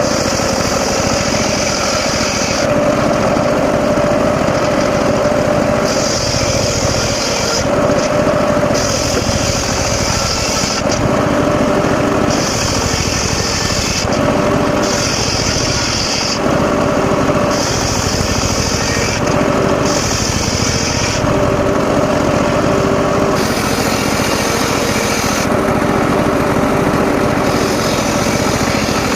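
Engine-driven circular saw running steadily while sawing mahogany, with a high hiss that comes and goes about nine times as the blade bites into the wood and runs free between passes.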